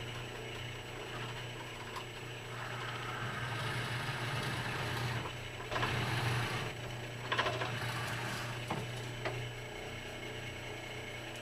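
Drill press motor running steadily while a 3/8-inch bit bores through a block of oak. The cutting noise swells and falls as the bit is fed in, loudest about halfway through.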